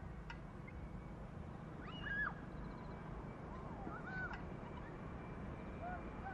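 Birds calling with short whistled notes that rise and fall, the loudest about two seconds in and more around four and six seconds in, over a faint steady low rumble of a distant Airbus A320-232's IAE V2500 jet engines at takeoff thrust.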